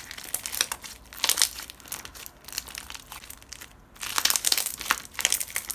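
Crunchy clear slime with small crunchy bits being squeezed and pressed by hand, giving irregular bursts of crackling and crunching. A longer, denser run of crackles comes about four seconds in.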